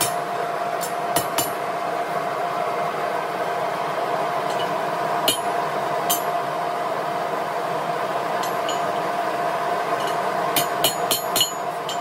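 Hand-hammer blows on a red-hot iron hook at the anvil: a couple of sharp strikes at the start, single blows about five and six seconds in, and a quick run of about eight near the end, over a steady hum from the forge.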